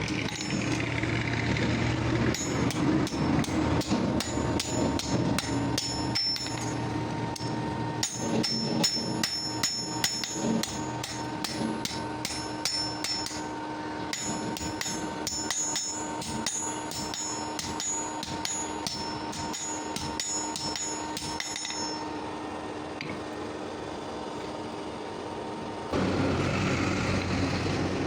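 Hammer blows on leaf-spring steel at an anvil, rapid runs of sharp ringing metal strikes that stop a few seconds before the end, over a steady hum. A rushing noise comes in near the end.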